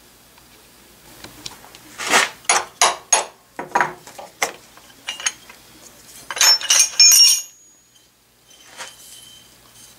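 Metal clinks and knocks as an aluminium casting is taken out of a milling-machine vise and the steel parallels under it shift: a run of sharp knocks about two seconds in, then a cluster of ringing clinks a little after six seconds.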